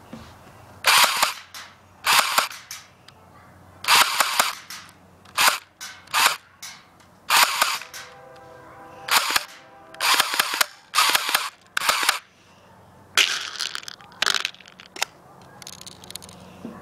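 Mini Uzi electric airsoft gun firing about a dozen short bursts of rapid shots, each under a second long, with brief pauses between.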